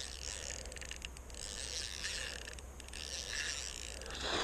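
Spinning reel being cranked while fighting a hooked pike: a faint, steady mechanical whir with a few light ticks over a steady hiss.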